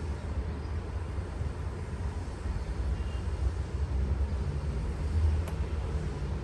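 Steady low rumbling noise with a fainter hiss above it, even throughout, like an outdoor field recording.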